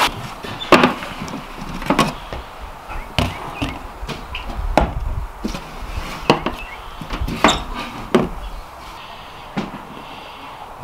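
Dishes and bowls set down on a wooden table: a string of sharp knocks and clunks about once a second, thinning out near the end.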